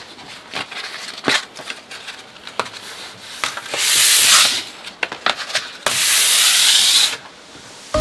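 Hand sanding with fine 600-grit sandpaper, done lightly. A few faint scratches and ticks come first, then two loud rasping strokes, a short one about four seconds in and a longer one near the end.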